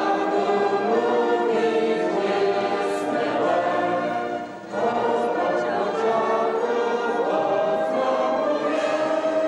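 A large congregation singing a hymn together in slow, sustained phrases, with a short breath break about halfway through.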